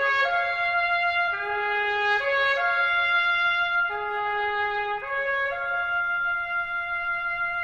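Solo trumpet playing a slow call of long held notes, stepping between a few pitches and settling on one long held note for the last two seconds or so.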